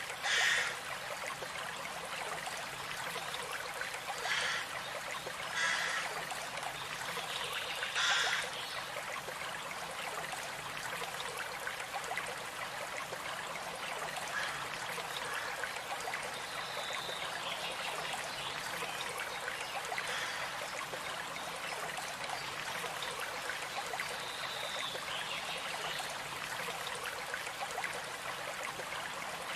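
A stream flowing steadily, with four short, louder bursts in the first eight seconds and birds chirping faintly now and then later on.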